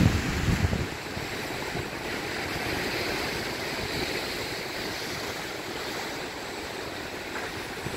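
Ocean surf breaking and washing over rocks below a sea cliff, a steady hiss of foaming water. Wind rumbles on the microphone for about the first second, then eases.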